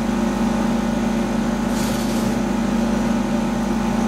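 Jingke 4060 CO2 laser cutter's ventilation and cooling equipment humming steadily, with a brief hiss about two seconds in.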